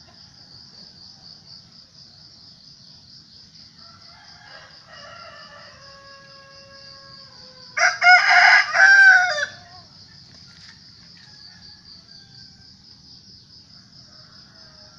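A rooster crows once, loud and close, about eight seconds in, after a fainter, longer crow from farther off. A steady, pulsing high insect trill goes on underneath throughout.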